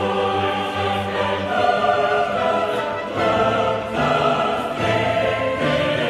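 Choral music: voices holding sustained chords that change every second or so.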